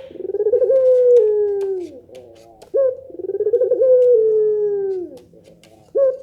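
Puter doves (Barbary doves) of the long-cooing 'pelung' type cooing. Each long, drawn-out coo opens with a short rising note, then slides slowly down in pitch for about two seconds. A new coo starts about every three seconds.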